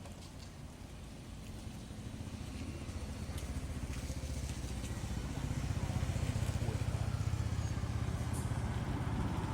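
A motor vehicle's engine running with a low rumble, growing louder from about two seconds in.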